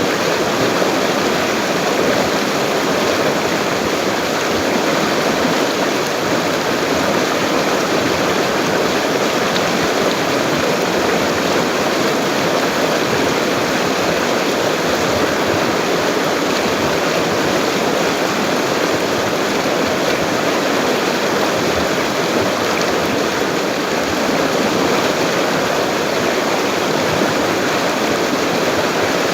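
Full, fast-flowing river rushing steadily: an even, unbroken wash of water noise.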